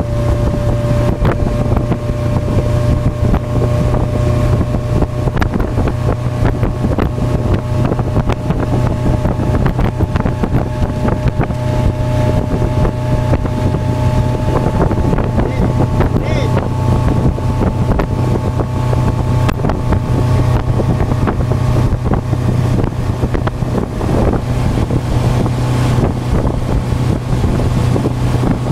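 Motorboat engine running steadily at towing speed, a constant low drone, with wind buffeting the microphone.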